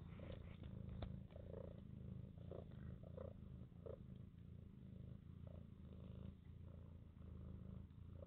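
A mother cat purring in a low, steady rumble while her newborn kittens nurse at her belly, with a few soft short sounds over it in the first half.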